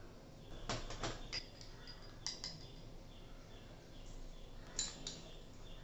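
Steel spoon clinking against a steel mixing bowl as spoonfuls of flour and cumin seeds are tipped in: a quick run of light taps about a second in, then a pair of taps twice more.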